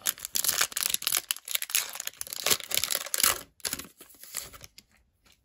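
Foil wrapper of a trading card pack being torn open and crinkled: a dense crackle for about three and a half seconds that thins out and stops near the end.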